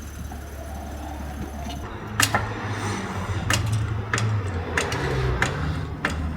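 A low mechanical hum. About two seconds in, a run of sharp metallic clicks starts, roughly one every half second to second, over a low hum that rises and falls in pitch.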